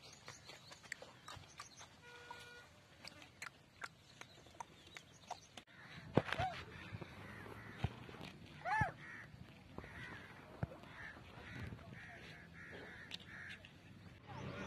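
A few faint crow caws, the clearest about six and nine seconds in, among scattered small clicks.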